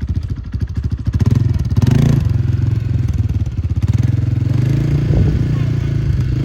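A motorcycle engine running, with fast, even pulses at first. About a second in it picks up revs and grows louder, then runs steadily.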